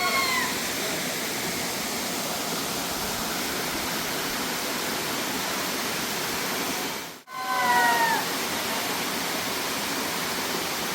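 Waterfall: a steady, full rush of falling water. It breaks off for an instant about seven seconds in, and a brief high falling call is heard right at the start and again just after the break.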